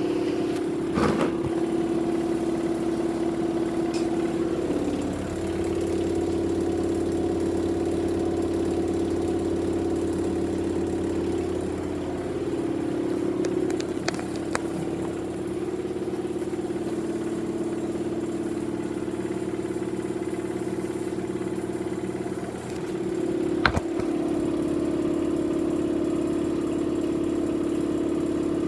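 Electrolux washing machine running a spin cycle with an unbalanced load: a steady motor and drum hum whose pitch shifts a few times as the drum speed changes, with a couple of brief knocks.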